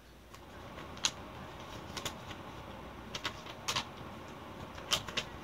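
Sheet of paper being handled and unfolded: a handful of sharp, short crinkles and snaps spread irregularly over about five seconds, over a steady low hiss.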